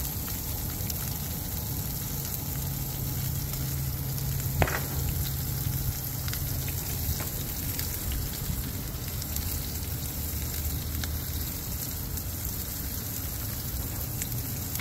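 A ribeye steak sizzling in a skillet of butter and sausage drippings on a propane camp stove: a steady crackling fry. A single light click sounds about four and a half seconds in.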